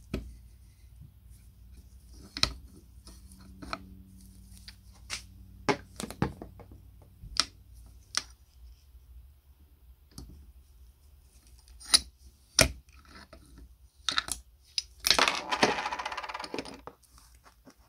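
Sharp metallic clicks and clinks of a screw-type gear puller and a steel gear being worked off its shaft, about a dozen separate strikes, with a rapid rattling run of about a second and a half near the end.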